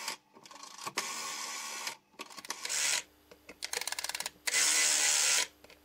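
Rotary dial of a 1958 RWT CB-49 bakelite telephone being dialled, digit after digit. Each time the dial runs back under its governor it makes a steady whirr with fine rapid clicking, and short pauses fall between the digits.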